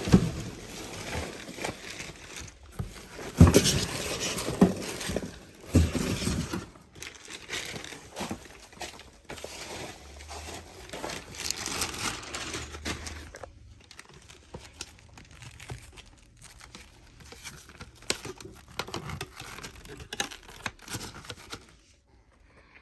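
Packaging being handled and unwrapped: irregular crinkling and tearing with scattered knocks, dying away near the end.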